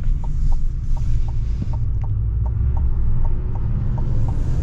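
Inside the cab of a Chevrolet Silverado 2500 ZR2 Bison on the move: steady low engine and road rumble, with a turn signal ticking evenly about three times a second.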